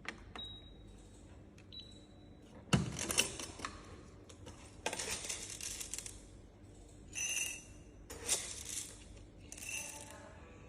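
Handling noises: a sharp knock about three seconds in, the loudest, followed by several bouts of clattering and rustling.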